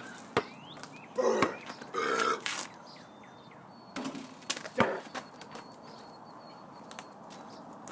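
A person burping a few times, in short throaty bursts, with a few sharp thuds of a basketball bouncing between them.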